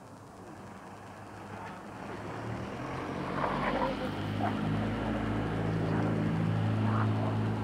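An engine running at a steady pitch, growing steadily louder through the clip, with a few brief higher-pitched sounds over it around the middle.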